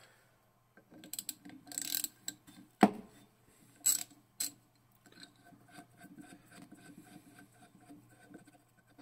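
Small metal clicks, taps and scraping from a hex driver working the screws out of a cast-iron pulley's taper-lock bush, with a few sharp clicks around three and four seconds in, then faint repeated ticking and rubbing. A faint steady low hum runs underneath.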